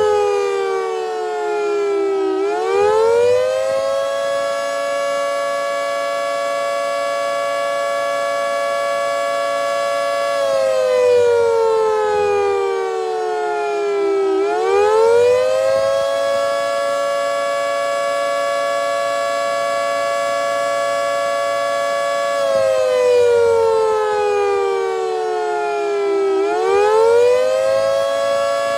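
Federal Signal 3T22A outdoor warning siren sounding a tornado siren test in a slow wail. The pitch climbs over about two seconds, holds steady for about six seconds, then falls over about four seconds. The cycle repeats twice.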